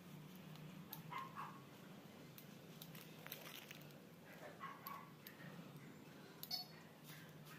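Faint outdoor ambience: a distant dog gives short calls about a second in and again near five seconds, over a low steady hum and scattered faint clicks.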